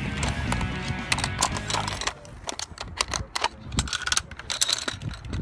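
Metal clicking and clanking of zip-line hardware, carabiners, lanyard clips and the trolley on the cable, being handled as a rider is brought in at the landing platform. A low steady rumble stops about two seconds in, leaving scattered sharp clicks.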